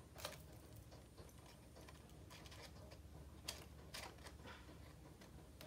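Near silence broken by a few faint, short clicks and rustles of scissors snipping through folded paper.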